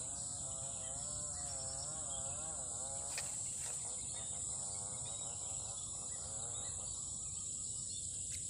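Steady high-pitched buzz of insects, with a fainter wavering tone beneath it and a single light click about three seconds in.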